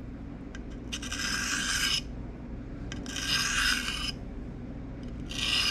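Pocket knife blade drawn with light pressure along the fine face of a three-sided sharpening stone: three strokes, each about a second long and about two seconds apart.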